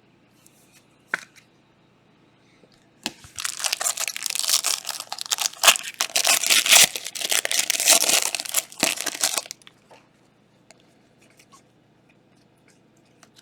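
A trading card pack's plastic wrapper being torn open and crinkled: a dense crackling that starts about three seconds in and lasts about six seconds. A single small click comes about a second in.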